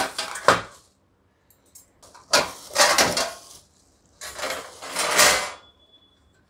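Plastic packing film crinkling as it is pulled off a folding iron charcoal barbecue grill, with the grill's metal parts clattering as they are taken out and lifted, in three bursts.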